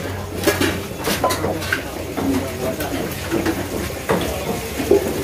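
Kitchen clatter: pots, bowls and utensils knocked against a table in several sharp knocks, under indistinct background talk of men. A steady low hum runs under the first two seconds.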